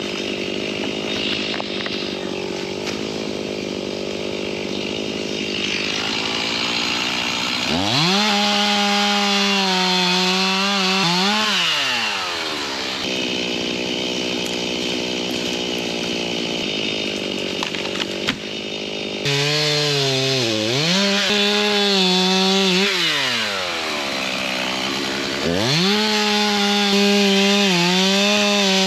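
Stihl chainsaw idling, then revved up to full speed three times to cut through a felled tree's trunk, its engine pitch dropping back to idle between cuts.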